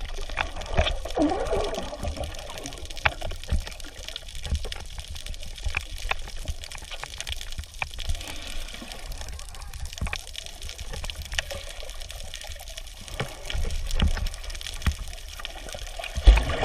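Water splashing and trickling, with many small scattered splashes and a low, uneven rumble underneath.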